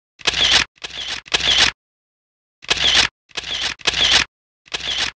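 Camera shutter sound effect, clicking seven times: a quick run of three, a pause, another run of three, then one more, with dead silence between the clicks.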